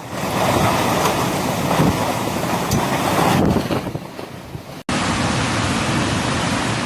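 Steady rushing noise of fast, churning water with wind buffeting the microphone. A hard cut about five seconds in switches to a second, similar stretch of rushing water.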